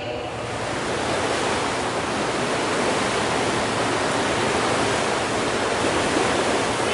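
Several single-blade paddles pulling through pool water together, building over the first second into a steady rushing churn of splashing water.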